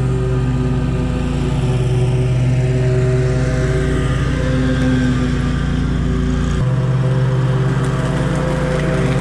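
Small petrol engine of lawn-care equipment running steadily, with a shift in its low note about two-thirds of the way through.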